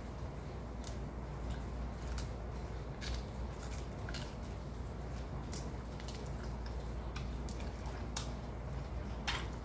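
Close-up eating sounds of grilled tuna jaw: irregular wet mouth clicks and smacks as meat picked from the bone by hand is bitten and chewed, over a steady low hum.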